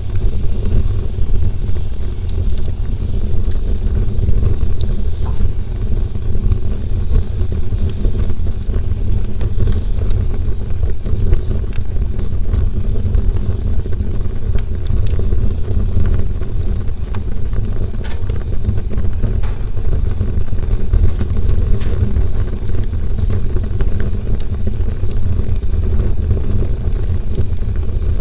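Campfire burning: a steady low rumble of flames under a hiss, with scattered sharp crackles and pops of burning wood.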